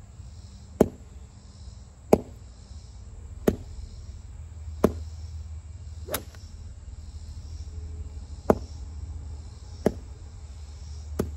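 Golf iron swung hard and repeatedly through the air, each downswing giving a short, sharp whip about every second and a half, eight times with one longer pause. The whip is the sign of a fast, freely swinging club.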